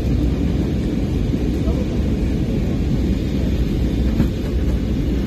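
Airliner cabin noise in flight through turbulence: a steady low rumble, with a few faint knocks and rattles, one a little louder about four seconds in.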